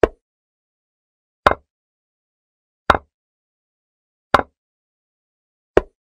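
Chess-board move sound effect: five short wooden clacks of a piece being set down, one about every 1.4 seconds, with silence between them.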